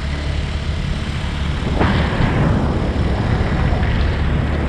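Steady low engine drone and road noise from an open vehicle being ridden along, with wind on the microphone. About two seconds in, a louder rush of noise sets in suddenly and fades away over a second or so.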